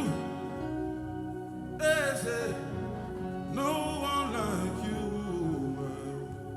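Slow live gospel worship music: held chords under a voice singing two drawn-out phrases without clear words, about two and four seconds in.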